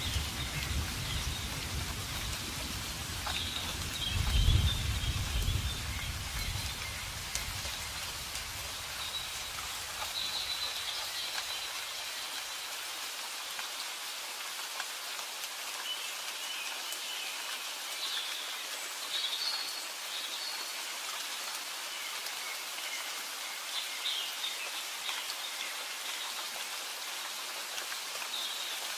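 Steady rain falling, with a low rumble of thunder that swells about four seconds in and dies away within the first few seconds. Short bird chirps come through the rain now and then.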